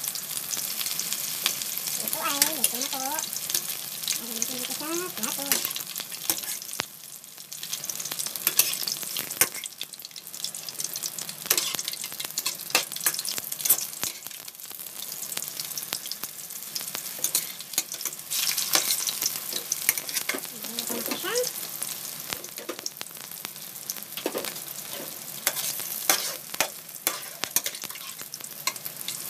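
Cooking oil sizzling and crackling in a wok as freshly added vegetable lumpia deep-fry, with sharp clicks of metal tongs against the wok as the rolls are placed and turned.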